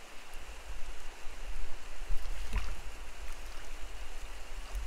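Shallow rocky creek running with a steady rushing sound, over a low rumble, with one brief sharp knock about halfway through.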